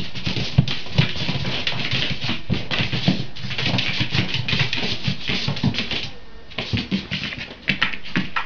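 A cat's paws and claws scrabbling and tapping on a hard floor as it dashes about, a dense run of quick scratchy clicks with soft thumps that eases off briefly past the middle.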